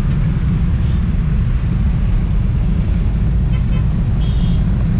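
Steady low rumble of wind and road noise from a motorbike riding in dense traffic, heard through a GoPro Hero 5 Black mounted on the bike. A few faint, short high tones come in near the end.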